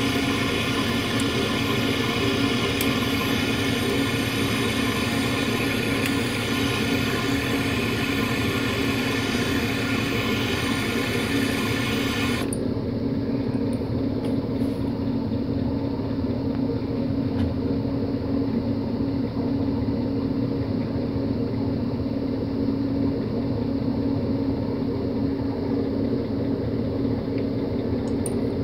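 Butane torch flame hissing steadily over a constant low mechanical hum. The hiss cuts off abruptly about halfway through, leaving only the hum.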